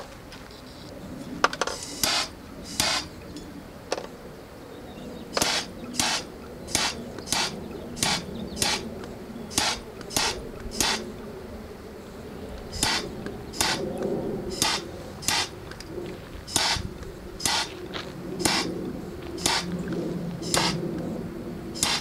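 Handheld gas torch with a blue fuel cylinder fired in short, repeated bursts of hiss, about one to two a second, to heat shrink tubing on a battery-cable connector.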